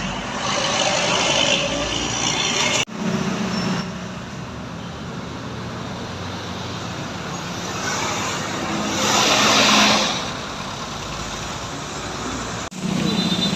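Passing road traffic, buses and other heavy vehicles, with engines and tyres running steadily. A louder rushing hiss swells and fades about nine seconds in as a vehicle goes by. The sound breaks off abruptly about three seconds in and again near the end.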